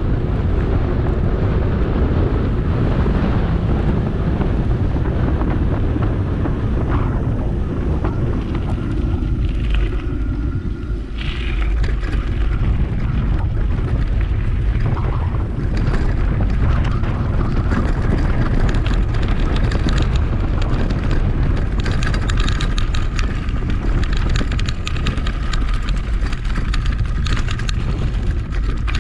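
Wind buffeting the microphone of a camera on a moving bicycle: a loud, steady rumble.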